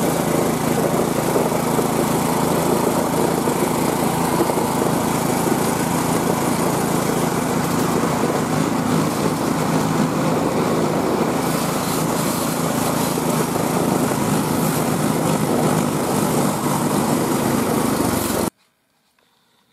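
Small engine of a homemade motorized dog sled running steadily as the sled travels over snow. It cuts off suddenly about a second before the end, leaving near silence with a few faint ticks.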